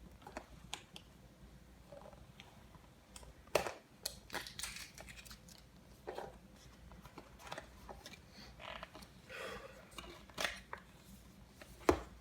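Product box being opened and handled: scattered clicks, scrapes and rustles of packaging, with a sharp snap about three and a half seconds in and another near the end.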